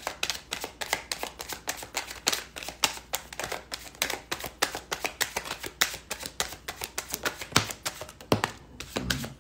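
Deck of tarot cards being shuffled by hand: a rapid, uneven run of crisp clicks and flicks as the cards slap against each other.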